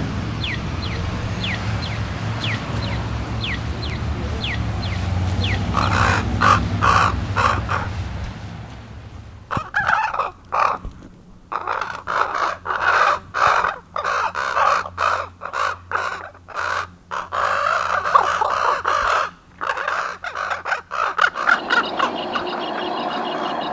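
Pedestrian crosswalk signal chirping, a short falling chirp about once a second, for the first five seconds or so. Then common ravens calling, a long run of croaks and caws, until a different steady sound takes over near the end.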